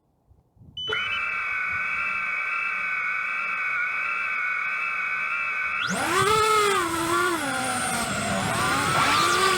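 Skystars Angela145 cinewhoop FPV drone's brushless motors starting about a second in and holding a steady high whine, then throttled up about six seconds in, the whine rising, growing louder and swooping up and down in pitch.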